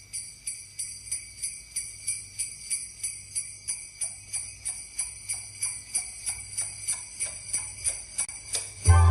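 Sleigh bells shaken in a steady beat, about two and a half shakes a second, as the opening of a music track; near the end the full band comes in loudly.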